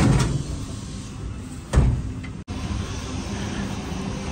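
A vehicle engine, likely the truck's diesel, running steadily. A loud noisy burst at the start dies away within about half a second, and a shorter one comes about two seconds in.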